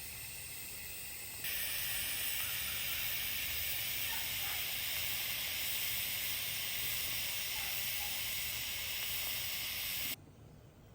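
TIG welding arc hissing steadily during the fill pass on a carbon steel pipe joint fed with 1/8-inch ER70S-2 filler rod. The hiss gets louder about a second and a half in and cuts off suddenly near the end as the arc is broken.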